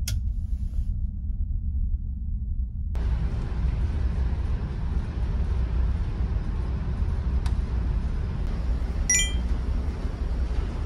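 Steady low drone of a ferry's engines, heard inside the ship. A light switch clicks at the very start, a wider hiss joins the drone about three seconds in, and a short run of faint high beeps sounds near the end.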